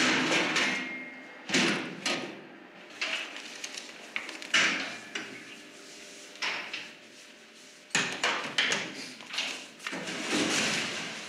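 Metal morgue cold-storage drawers and doors being slid and shut: sliding rumbles with a series of separate metallic knocks and clunks.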